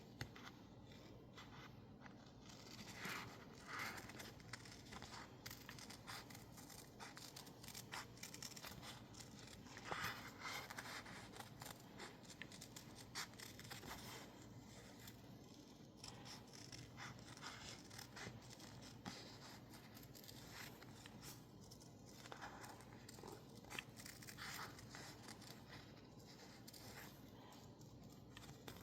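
Quiet cutting of sticker label paper: many small snips and clicks with short rustles of the paper being handled.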